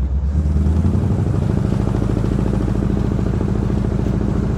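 The engine of a 1963 Chevrolet Impala SS running steadily as the car drives slowly, heard from inside the cabin. It runs evenly with no backfiring, newly tuned with its spark plugs gapped at .035 and the timing set just above the mark.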